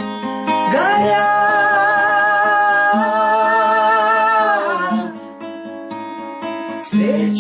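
A song with acoustic guitar accompaniment: a singer holds one long note with vibrato for about four seconds, then the guitar carries on alone, and the voice comes in again near the end.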